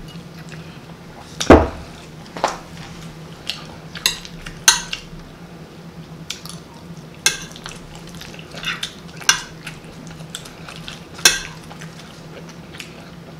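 Metal fork clinking and scraping against a plate during eating: a string of sharp, separate clicks about once a second, with one louder, heavier knock about a second and a half in.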